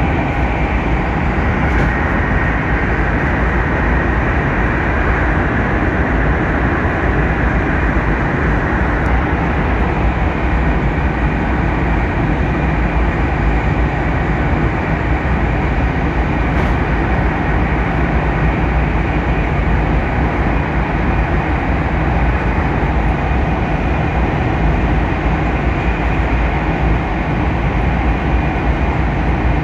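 Cabin noise inside a Hokkaido Shinkansen bullet train running at speed: a steady, loud rumble and rush from the wheels and the air outside.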